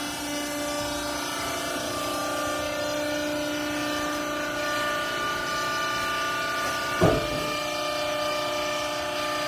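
Clothes baler's hydraulic pump motor running with a steady whine, broken by one sharp knock about seven seconds in.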